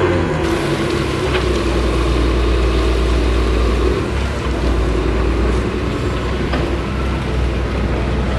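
Komatsu D61PX bulldozer's six-cylinder diesel engine running steadily as the dozer grades, with a few faint short knocks.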